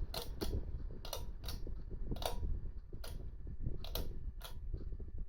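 Gulf Coast Bimini Breeze ceiling fan running on high, with a steady low rush of moving air and sharp ticks about every half second to a second, often in pairs.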